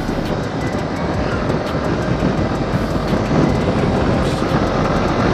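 Yamaha R15M's 155 cc single-cylinder engine running at a steady cruise of about 60–65 km/h, mixed with wind noise over the microphone, slightly louder after about three seconds as speed builds.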